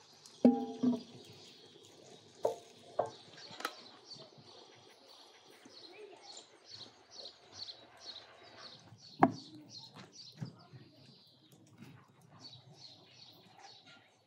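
A large aluminium pot set down on a table with a ringing metallic clang about half a second in, followed by a few more knocks of cookware being handled, one loud knock about nine seconds in. Behind them a small bird sings a repeated high chirp, about three notes a second, in two runs.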